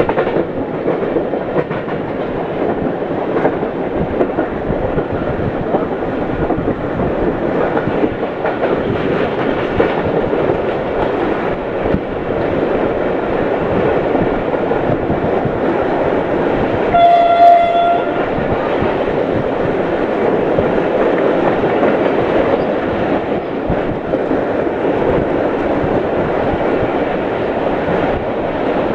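Passenger train running over the rails with a steady rumble and clickety-clack of the wheels. About 17 s in, the locomotive sounds one short horn blast of about a second.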